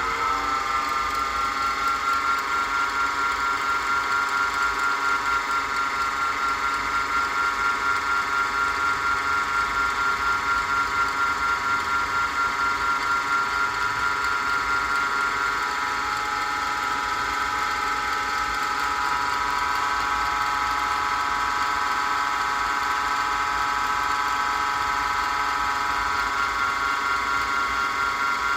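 Electric motor of a small wood lathe reaching full speed in the first second, then running steadily with a constant whine.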